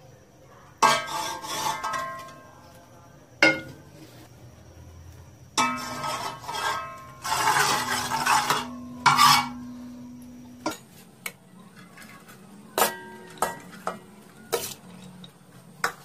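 Metal cooking pot clattering and ringing as ingredients are added and handled with a spoon. Several loud scraping, rattling bursts come in the first half, followed by a string of sharp metallic clinks.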